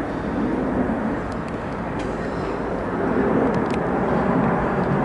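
Airbus A330 airliner passing overhead on approach with its landing gear down, a steady jet engine noise that grows louder about three seconds in as it comes closer. A few faint ticks.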